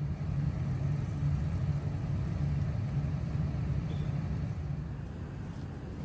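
Road traffic: a motor vehicle's engine running with a steady low rumble, easing off slightly near the end.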